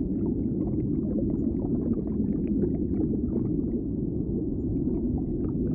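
Underwater ambience: a steady low rumble with a dense scatter of small crackling clicks over it.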